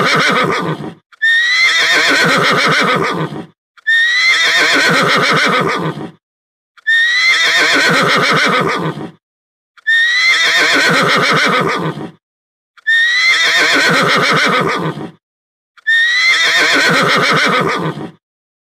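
A horse whinnying, the same recorded whinny played again and again, about seven times, with short gaps between. Each call lasts about two seconds and starts high, then falls in pitch.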